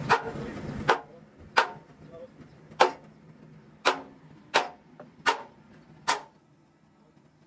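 Hammer blows on metal, about eight sharp strikes at uneven intervals of roughly a second, each ringing briefly. A steady background hum cuts off about a second in.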